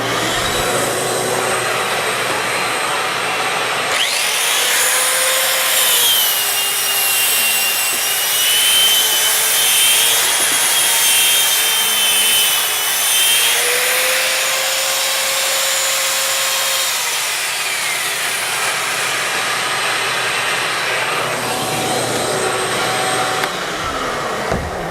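Electric power sander, hooked to a Ridgid shop vac, running against the wall and sanding down dried drywall joint compound to smooth out ridges. Its steady noise carries a whine that wavers in pitch through the middle, and it stops just before the end.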